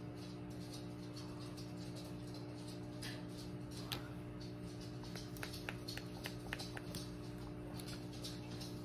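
Quiet room tone: a steady low hum, with a scatter of faint small clicks and ticks between about three and seven seconds in.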